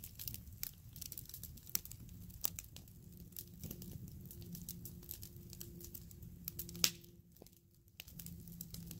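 Wood campfire burning, crackling with many sharp pops over a steady low rush of flame; the loudest pop comes just before seven seconds in.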